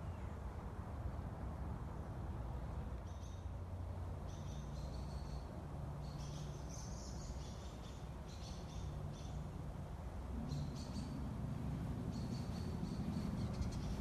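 Small songbirds chirping in short repeated bursts of high notes, starting about three seconds in and recurring through the rest, over a steady low rumble.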